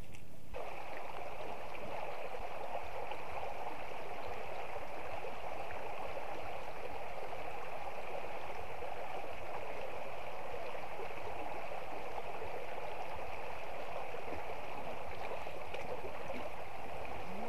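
Shallow stream water rushing over stones in a riffle, a steady, even rushing that sets in about half a second in.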